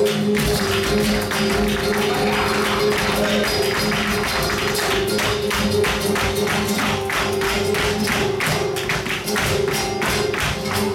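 Live flamenco tarantos: dancers' shoes stamping fast, irregular footwork on the stage, over guitar and percussion accompaniment. The strikes grow denser from about four seconds in.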